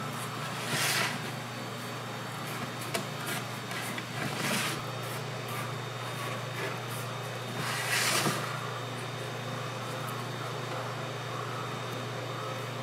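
Hands folding and pressing raw pizza dough over string-cheese sticks to form a cheese-stuffed crust, with three brief soft swishes of the dough being handled, about a second in, near the middle and about eight seconds in, over a steady low machine hum.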